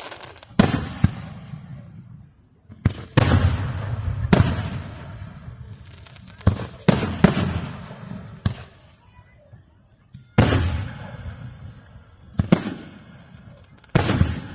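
Fireworks exploding overhead: about a dozen sharp bangs at irregular intervals, some in quick pairs, each trailing off in a long echoing rumble.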